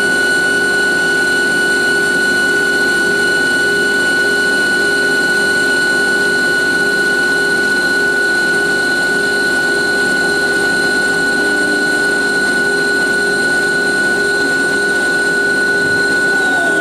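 CNC lathe cutting solid brass stock, the tool working in the front of a spinning brass fountain jet: a steady machine whine with several constant pitches over the grinding noise of the cut. Near the end the whine drops in pitch.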